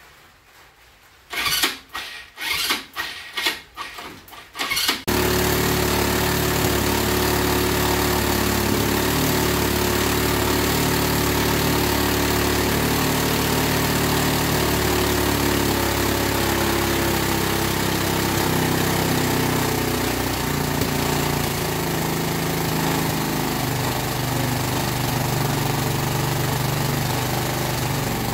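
Linhai ATV engine being cranked by its electric starter in several short bursts, then catching about five seconds in and running steadily at a fast idle after its restoration with new gaskets. Its speed settles a little lower about two-thirds of the way through.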